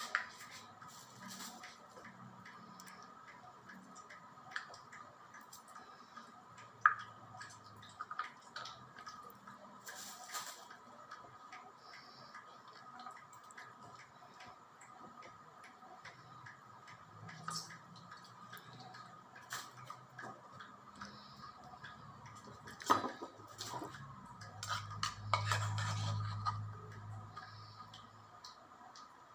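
Faint, scattered clinks, taps and scrapes of kitchen utensils against dishes, with sharper knocks about seven seconds in and around twenty-three seconds. A low hum swells briefly near the end.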